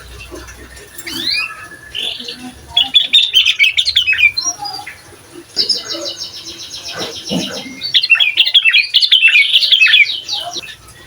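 Sooty-headed bulbul singing energetically in quick, chattering phrases, with several bursts of song one after another and a fast run of even notes about halfway through.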